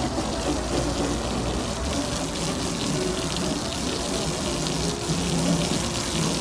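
Garden hose spray nozzle jetting a steady stream of water against a car's door panel.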